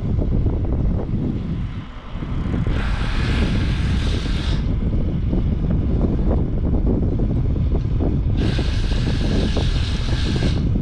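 Strong wind buffeting the microphone, a heavy steady rumble, with two hissing bursts of about two seconds each, around three and nine seconds in.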